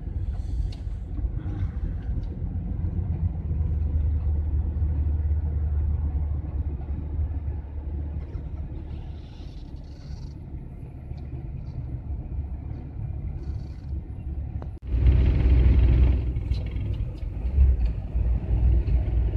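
Low, steady rumble of a GAZelle van's engine and road noise heard from inside the cab while driving. About fifteen seconds in it cuts off for an instant and comes back louder.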